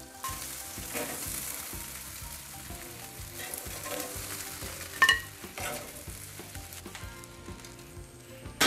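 Glazed chicken wings sizzling on a hot gas grill grate with a steady hiss, while metal tongs lift them off, and a sharp click about five seconds in. The sizzle thins out near the end.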